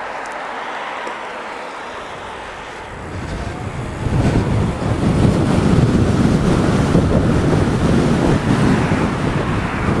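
Wind buffeting the microphone of a camera on a moving e-bike. The rumble gets much louder about three to four seconds in, as the bike pulls away from the junction and picks up speed.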